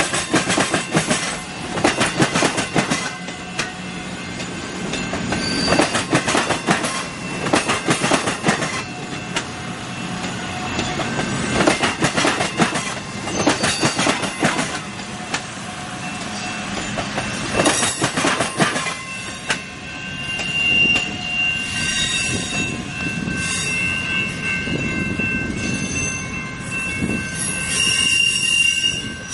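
South Shore Line electric commuter train passing over the crossing and interlocking, its wheels clacking over rail joints and switches in a cluster every few seconds as each car goes by. In the last third a steady high wheel squeal grows stronger as the train rounds the curve away.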